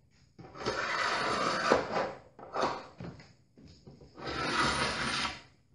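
A metal paint scraper drawn lightly across painted woodwork in several rasping strokes, the first and last the longest. It is scraping the dried nibs off the paint surface in place of sanding.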